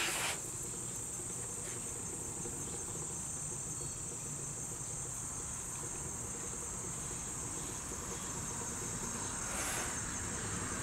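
Steady high-pitched insect chorus, with a brief soft rush of noise at the start and again near the end.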